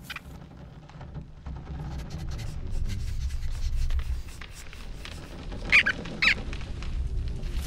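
A low, steady rumble with faint scattered ticks, and two short squeaks close together about six seconds in.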